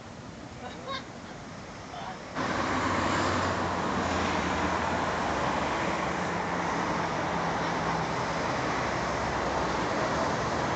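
Road traffic noise: a steady wash of passing cars with a low engine hum, jumping suddenly louder about two seconds in and staying loud.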